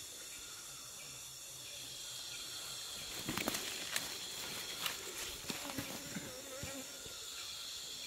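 Steady high-pitched chorus of rainforest insects, with bees buzzing close by in wavering drones. From about three seconds in, scattered clicks and rustles join in.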